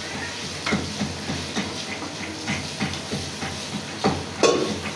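Wooden spatula stirring diced chicken and green capsicum in a metal wok over a low frying sizzle, knocking and scraping against the pan two or three times a second, loudest once near the end.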